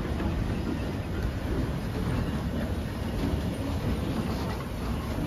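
Steam train with a vintage coach rolling past at close range: a steady rumble of wheels on the track with light scattered clanks.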